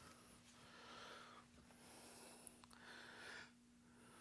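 Near silence: a man breathing faintly in a few soft breaths, over a steady low electrical hum.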